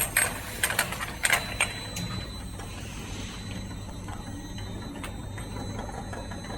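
Automatic round-bottle labeling machine running: a run of sharp clicks and clatter for about the first two seconds, then a steady motor hum.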